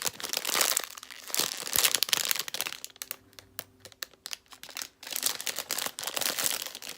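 Plastic packaging of a boxed squishy toy crinkling and rustling as it is handled and opened, with a quieter spell in the middle.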